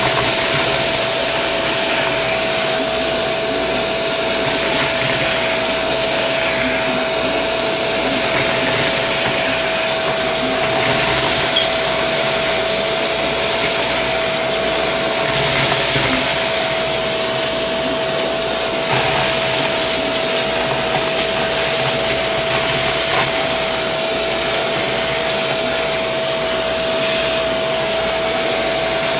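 Shark vacuum cleaner running through its crevice tool with a steady whine, sucking up sequins and foil confetti off carpet with an irregular crunchy rattle of pieces pulled into the nozzle.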